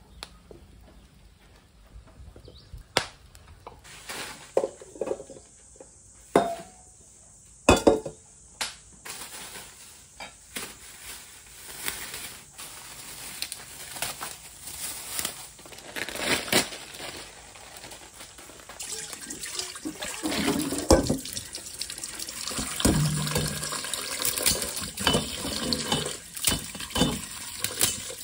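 A kitchen tap runs into a stainless steel bowl in the sink while dried rice vermicelli is rinsed by hand, the water noise building over the last part. Before that, scattered sharp clicks, knocks and crinkles come from handling the noodles in their plastic wrapping.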